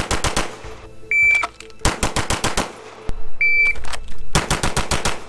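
Zev OZ9 9mm pistol fired in fast strings, three bursts of about five to seven shots each. A short, high electronic beep sounds about a second before the second and third strings.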